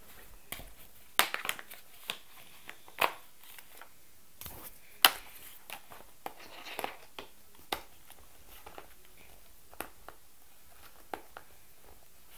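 Plastic toy gun being assembled by hand: irregular clicks, knocks and rattles as the parts are handled and fitted together, the sharpest a little over a second in and about five seconds in.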